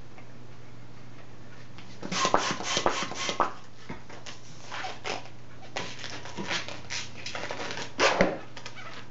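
Long latex twisting balloon squeaking and rubbing in the hands as it is pumped up with a hand pump and then handled and stretched. There is a quick run of squeaks about two seconds in and the loudest squeaks near the end.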